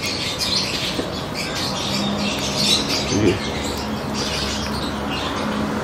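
Outdoor ambience of birds chirping and squawking over a low steady hum, with one short call about three seconds in. A hand crumbling dry compost adds a light rustle.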